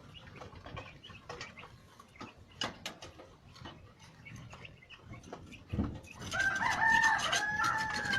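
A rooster crows once, a drawn-out call of about two seconds starting some six seconds in, after a low thump. Before it there are only faint, scattered clicks and scratches.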